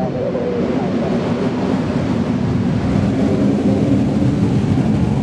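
Aircraft departing: a loud, low rumble of engine noise without a clear tone that grows slowly louder.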